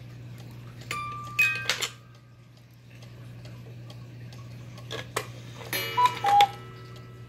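Regula Black Forest cuckoo clock ticking, with two clusters of clicks and short ringing metallic notes from its mechanism and music box: one about a second in, the other near the end.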